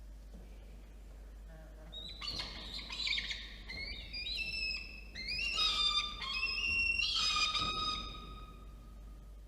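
Peregrine falcon calling: a run of high, drawn-out wailing calls, each sliding up and then holding its pitch. They start about two seconds in, are loudest past the middle, and fade near the end.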